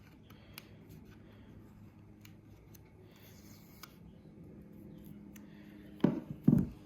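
Faint handling of packaging with scattered small clicks and rustles, then two louder thumps about half a second apart near the end.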